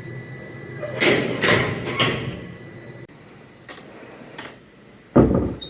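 Handling noises: three sharp clattering knocks close together, a couple of light ticks, then one heavy thump near the end, over a faint steady hum.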